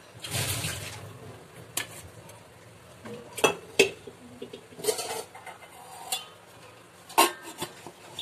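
Stainless-steel steamer pot clanking as its tray of momos is set in and the steel lid is put on: several sharp metallic clinks with a short ring. The loudest come as a pair about three and a half seconds in and once more about seven seconds in.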